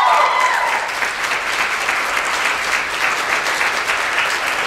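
Audience applauding, a dense steady clatter of many hands clapping. A single high held call rides over the clapping and stops within the first second.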